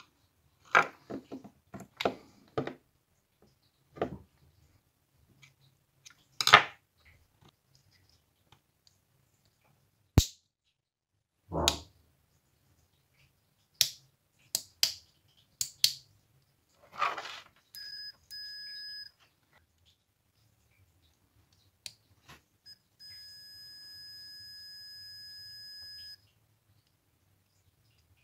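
Scattered clicks and knocks of small parts being handled, then a steady high-pitched electronic beep held about a second and a half, and again for about three seconds near the end.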